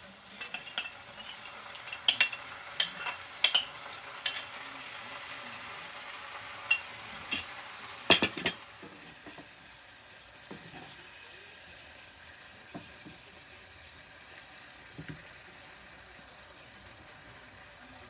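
Beef and noodle stir-fry sizzling in a nonstick frying pan while a wooden spatula scrapes and knocks against the pan. The sharp clacks come thick and fast in the first half, then ease off about halfway through to a quieter sizzle with only an occasional tap.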